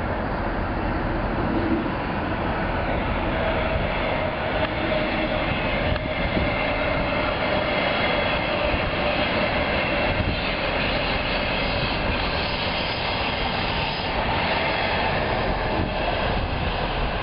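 Electric passenger train with double-deck coaches passing: a steady noise of wheels on rails, with a faint whine over it.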